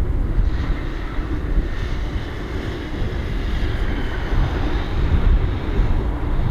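Strong wind buffeting the microphone, a loud, unsteady low rumble.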